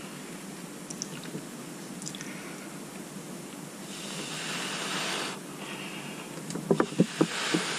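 Mouth-blowing onto wet acrylic paint in the centre of a canvas to push the paint outward for a bloom effect: two breathy blows, a longer one about four seconds in and a shorter one near the end, with a few soft clicks between.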